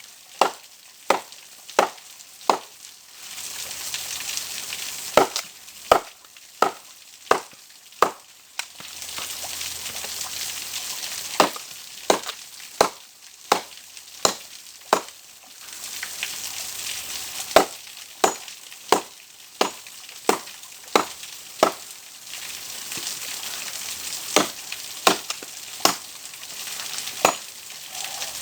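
Wood being chopped: a long series of sharp blows, about one every three-quarters of a second, in runs broken by short pauses filled with a steady hiss.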